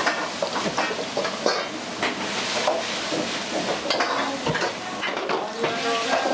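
Metal ladle scraping and clanking rapidly against a wok while food sizzles and fries in it.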